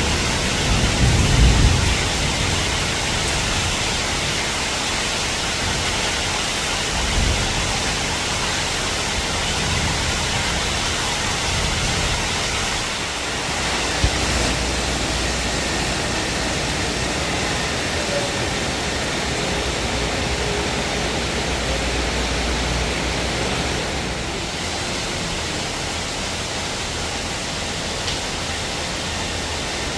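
Heavy downpour: a steady, dense hiss of rain, with one short knock about 14 seconds in.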